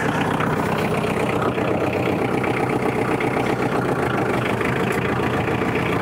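Compact diesel tractor's engine running steadily as it sets off towing a portable sawmill.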